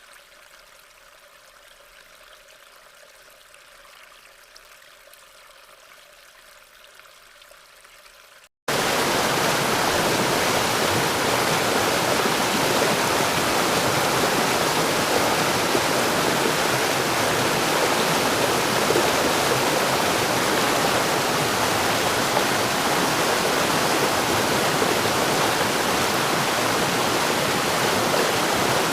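Faint trickling, flowing water, then after a brief cut about eight seconds in, loud steady rushing water like a waterfall or fast stream.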